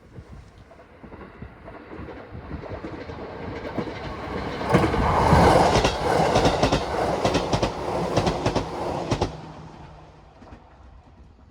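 A 211 series electric multiple unit passing close by. Its rumble builds for about four seconds, then a loud pass of about four and a half seconds with rapid clickety-clack of the wheels over rail joints, then fades as it moves away.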